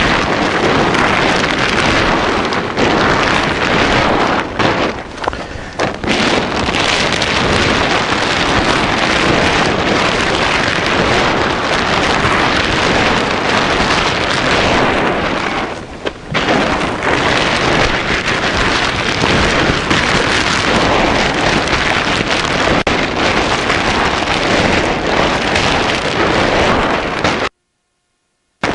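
Wind buffeting the camera microphone, a loud steady rushing with a couple of brief lulls. It cuts off suddenly near the end.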